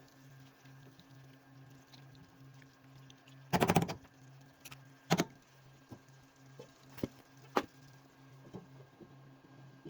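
Kitchen clatter: a short, loud rattle of rapid clicks about three and a half seconds in, then a few single sharp clicks, over a steady low hum.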